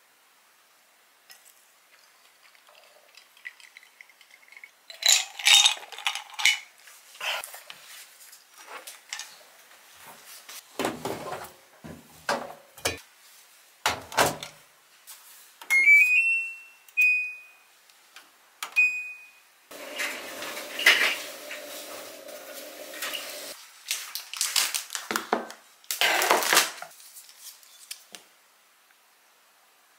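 Household handling sounds: cutlery and dishes clinking, and the thud of a front-loading washing machine's door. The machine's control panel then beeps, first in a short run rising in pitch and then in single button beeps. A few seconds of steady humming follow, then more clatter of kitchen items.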